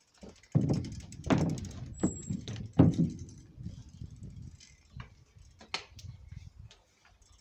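Mountain bike knocking and rattling as it is moved about: a handful of heavy thumps in the first three seconds over a low rumble, then lighter knocks.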